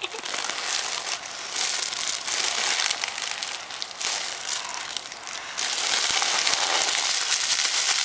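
Helium rushing out of the neck of a balloon held to the mouth as it is inhaled, with the crinkle of the balloon being squeezed in the hand. The rush comes in about four long stretches with brief breaks between.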